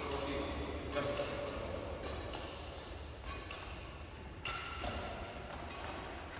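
Badminton racket strikes on a shuttlecock during a doubles rally: a few sharp hits, about a second in and again after four seconds, over the low hum of the hall.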